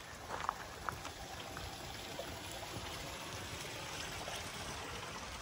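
A small shallow creek flowing and trickling over rocks in a steady rush, with a few footsteps on wooden bridge planks in the first second.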